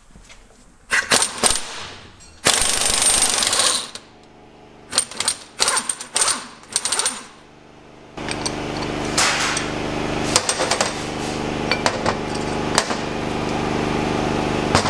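A pneumatic tool chattering in short bursts to press the pinion head bearing off a differential pinion with a bearing separator. From about eight seconds in a steady machine drone takes over and runs on.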